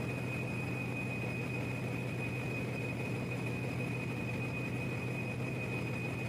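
Steady machinery drone of a large running generator engine, a constant low hum with a steady high whine over it, unchanging throughout.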